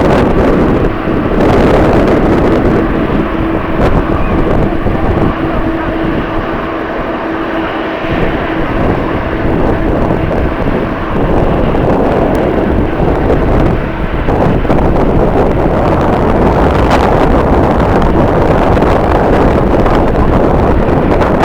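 Jet airliner engines running, with strong wind buffeting the microphone; a steady engine tone is heard in the first part and fades after several seconds.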